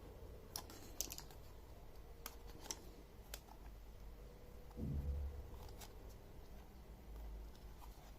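Scattered small plastic-and-metal clicks and taps from hands working on a ThinkPad E580 laptop's case and parts, with a dull low thump about five seconds in.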